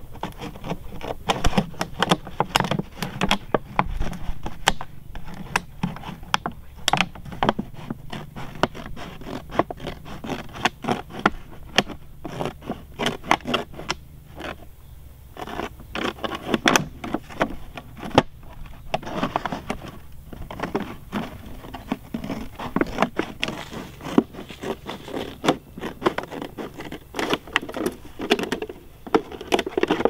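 A thin clear plastic drink bottle being cut with a knife and handled, the plastic crinkling and crackling in quick irregular clicks and scrapes.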